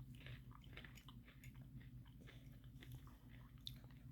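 Faint chewing of chocolate- and almond-coated Pocky biscuit sticks, with small irregular crunches. A low steady hum runs underneath.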